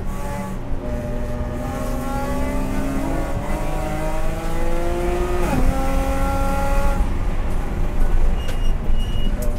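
Race car engine heard from inside the cockpit under full throttle. The revs climb steadily, then drop sharply a little past halfway as the car upshifts from third to fourth gear, and then climb again.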